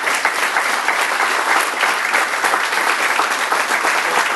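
A small crowd applauding steadily with many overlapping hand claps.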